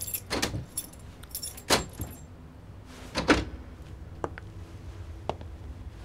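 Keys jangling, with a few sharp knocks and thumps, the loudest about three seconds in, over a low steady hum.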